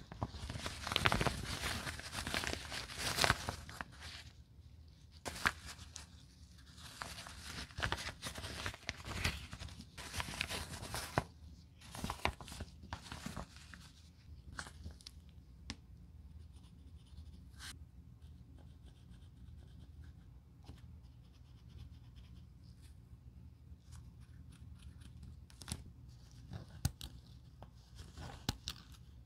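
Worn-out fabric lining being ripped out of a handbag, in three long tearing pulls over the first dozen or so seconds. After that come quieter small clicks of thread snips cutting the seam stitching.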